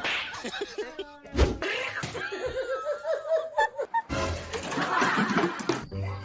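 Background music mixed with people laughing, with abrupt changes in sound about a second and a half in and again about four seconds in.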